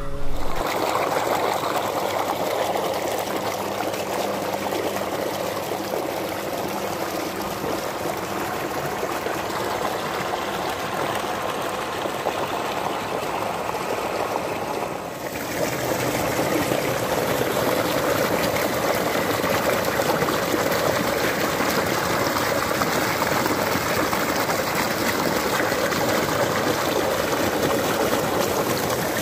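Tubewell water gushing steadily from an outlet pipe into a concrete tank, a dense splashing rush. It dips briefly about halfway and comes back a little louder.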